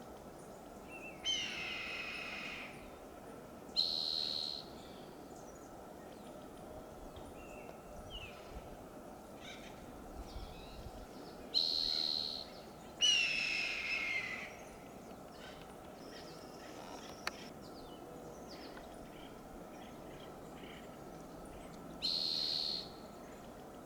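Red-tailed hawk calling: two long, hoarse screams that fall in pitch, one about a second in and one around the middle, with three shorter, flat calls in between, over a steady background hiss.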